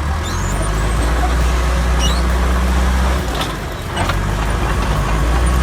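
Bulldozer's diesel engine running hard under load with a steady low drone that eases briefly about three seconds in and then picks up again. A few sharp cracks sound over it.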